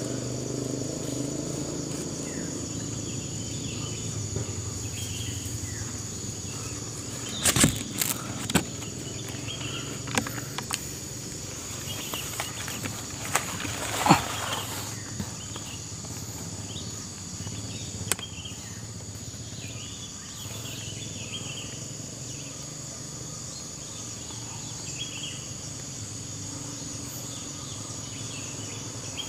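Steady drone of forest insects with a constant high whine, broken by a few sharp cracks and knocks, the loudest about 8 and 14 seconds in.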